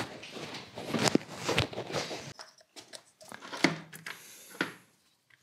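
Irregular handling noises: knocks, clicks and rustling. The background drops suddenly a little over two seconds in, after which a few more knocks come as a Hall sensor and its tester are handled on a metal bench.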